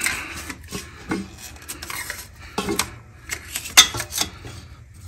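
Irregular metallic clinks, knocks and scrapes as a red telescoping oil drain pan on its stand is moved into place under a car's engine. The sharpest clank comes about four seconds in.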